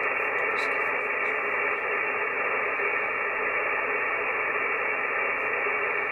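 Icom IC-7300 HF transceiver receiving on the 40-metre band in lower sideband: a steady hiss of band noise and static from its speaker, with no clear voice coming through.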